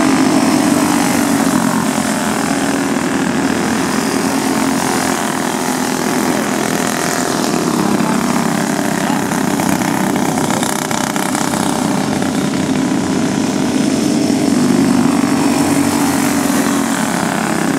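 A racing go-kart's small engine running hard, its steady drone rising and falling in pitch as it laps the dirt oval, loudest about a second in and again about fifteen seconds in.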